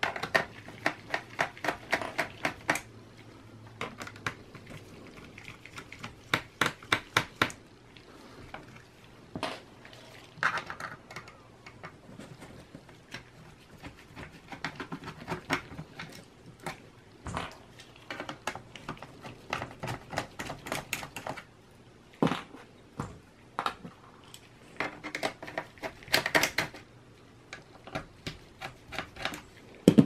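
Mini Phillips screwdriver working small screws on the bottom of a laptop's plastic case: several bursts of quick clicking, with single knocks and taps on the case in between.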